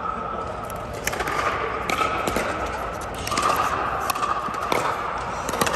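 Pickleball rally: a series of sharp pops, roughly one a second, as paddles hit the plastic ball, over steady background noise.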